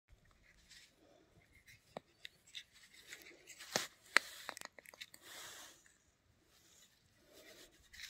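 Horse chestnut husk being prised apart by hand, giving a few faint sharp cracks and light rustling as the fleshy shell splits away from the conkers.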